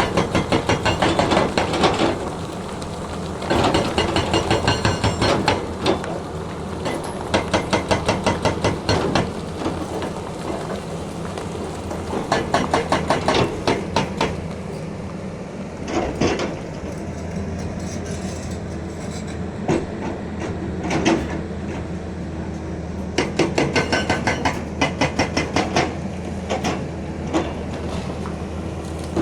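Excavator engine running steadily under load. It is broken by several bouts of rapid, even pounding of about seven blows a second, each bout lasting two to three seconds, and by a few single knocks.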